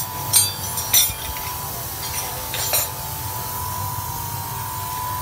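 Metal hand tools and small engine parts clinking as they are handled, four sharp clinks in the first three seconds, over a steady high hum in the background.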